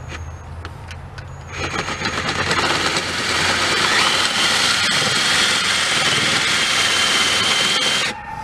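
Cordless drill boring into an aluminium piston, starting about a second and a half in, with a steady high whine joining partway through, then stopping abruptly just before the end.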